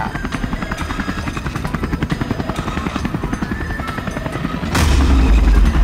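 Helicopter rotor sound effect: a fast, steady chopping of the blades. Near the end, a sudden loud thump with a deep rumble that carries on.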